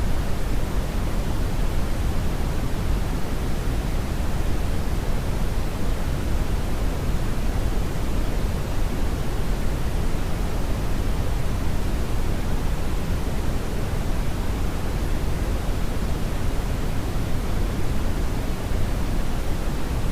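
Steady brownian (red) noise: a deep, even rumbling hiss, strongest in the low end and falling off toward the highs, with no change.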